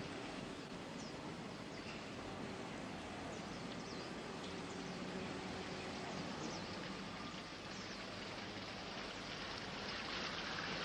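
Water splashing in a garden fountain, a steady hiss that grows louder near the end.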